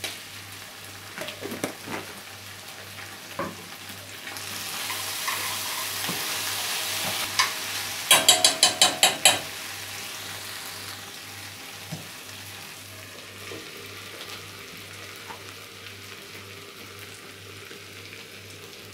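Beef with onion and carrot in tomato sauce sizzling in a frying pan as it is stirred with a metal spoon, with small scrapes and clicks. The sizzle swells for several seconds midway, and then the spoon is tapped about eight times in quick succession against the pan, ringing sharply.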